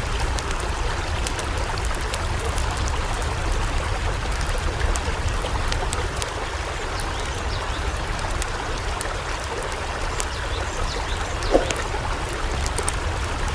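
Floodwater rushing steadily in a continuous, even stream.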